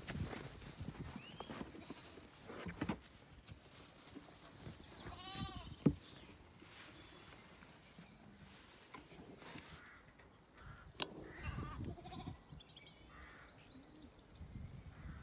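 A lamb bleating several short times, the clearest and loudest a wavering call about five seconds in, over rustling and soft thumps; a sharp click comes right after that bleat.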